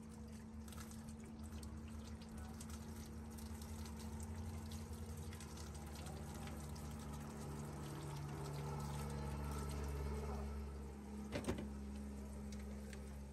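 Tap water running and splashing while a whole fish is rinsed by hand at a sink, with small wet clicks and handling noises. A low steady hum sits underneath, and there is one sharp knock near the end.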